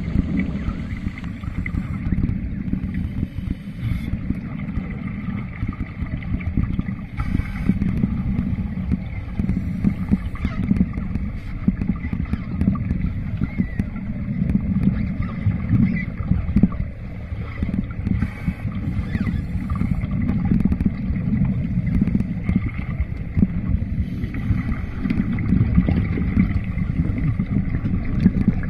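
Muffled underwater rumble heard through a camera underwater, with the gurgle and hiss of scuba regulator exhaust bubbles coming and going every few seconds.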